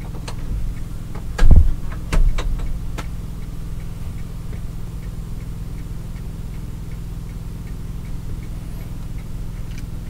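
Regular tick-tock of a small solar-powered 'coffee man' novelty figure, over the steady low hum of a Befano electric milk frother running. Two thumps about a second and a half and two seconds in.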